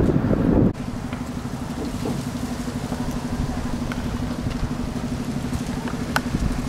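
A vehicle engine running steadily with an even low hum. A louder rushing noise over it cuts off suddenly under a second in, and there is a single short click near the end.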